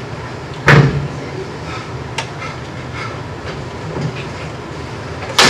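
Two sharp knocks, one about a second in and another near the end, over a steady low hum of the room.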